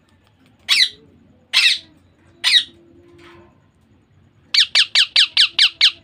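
Young Indian ringneck parakeet calling while being hand-fed from a syringe, the food-begging calls of a chick: three loud calls about a second apart, then a quick run of about seven short calls, roughly five a second, near the end.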